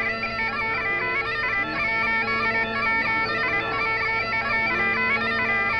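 Scottish bagpipes playing a quick melody over steady, unbroken drones.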